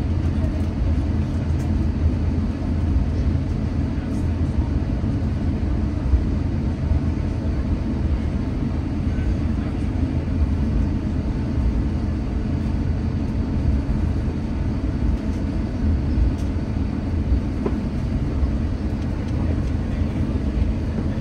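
Airbus A350-900 cabin noise while taxiing, heard from a window seat: the Rolls-Royce Trent XWB engines give a steady low rumble and hum with no change in level.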